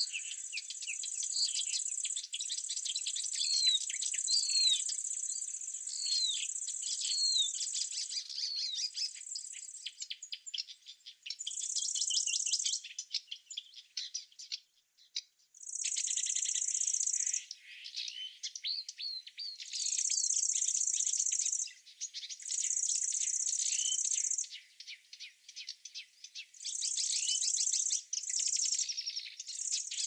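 High insect buzzing, steady for the first third and then coming in bursts of about two seconds with short pauses between. Small birds chirp and twitter throughout with many quick, downward-sweeping notes.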